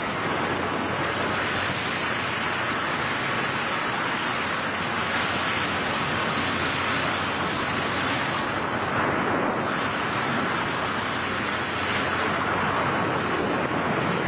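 Steady rush of air on the microphone of a skydiver in freefall.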